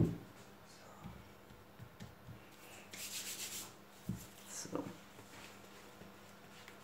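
A dough-lined baking dish set down on a silicone baking mat with a dull thud, then a brief dry rubbing of hands about three seconds in, followed by a soft knock and a short rustle.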